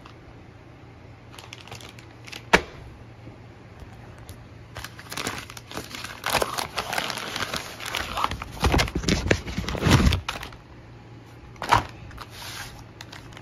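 Brown paper Amazon mailer being crinkled and torn open by hand, with a busy stretch of rustling and tearing in the middle. A sharp tap comes about two and a half seconds in, and another just before the end.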